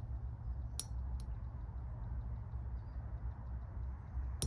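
A few sharp clicks at a camp gas stove and its cookware, in two pairs, one about a second in and one near the end, over a steady low rumble.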